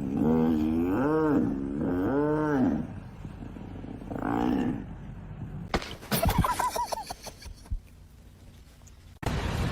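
An animal giving three drawn-out calls that rise and fall in pitch, then a shorter call. A sharp click follows, then a few brief, higher-pitched calls. The sound cuts off abruptly near the end.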